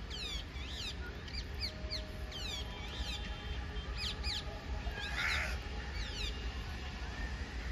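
Birds calling in a run of quick, sharp chirps that sweep up and down in pitch, over a steady low rumble.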